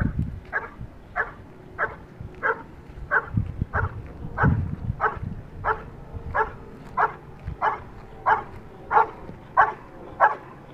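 A search dog barking steadily and repeatedly, about three barks every two seconds. This is a search dog's bark alert, signalling that it has found the hidden person.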